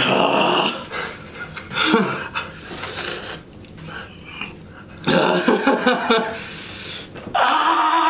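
Men breathing hard, hissing and groaning in pain from the burn of an extremely hot chili chocolate bar, with louder pained cries about five seconds in and near the end.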